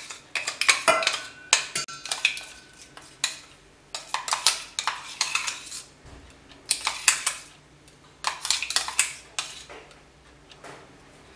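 Metal spoon scraping and clinking against a stainless-steel mixer-grinder jar, with the jar knocking on the rim of a steel pot, as thick ground mung dal batter is emptied out. The clinks and scrapes come in bursts with short pauses, and the sound eases off near the end.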